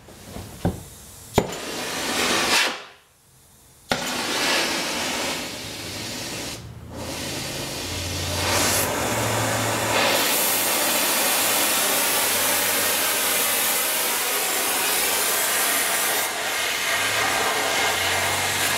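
Gas torch flame burning with a steady hiss as it heats a gear held in a gear puller, to free a gear shrunk onto its shaft. The hiss starts sharply after a brief quiet about four seconds in and grows fuller about ten seconds in.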